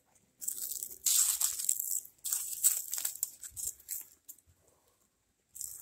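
Footsteps crunching through dry fallen leaves and twigs on dirt, an irregular crackle of steps that stops about four seconds in.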